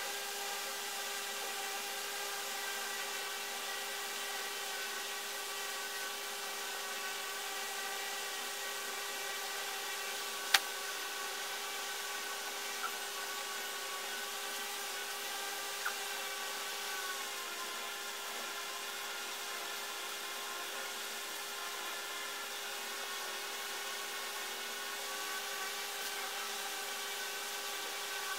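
A steady hum with several fixed tones over a faint hiss, with one sharp click about ten seconds in.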